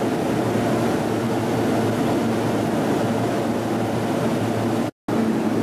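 Steady hum and rumble of a stopped E233 series 1000 electric train, with its doors open and its on-board equipment running. The sound cuts out for a moment about five seconds in.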